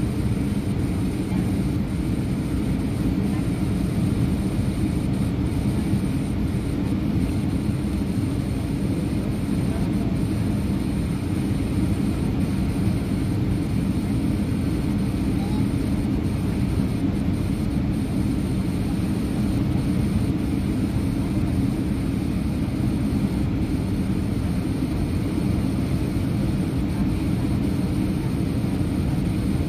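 Steady cabin noise inside an Airbus A320-200 descending on approach to land: an even, deep rumble of engines and rushing air with no distinct events.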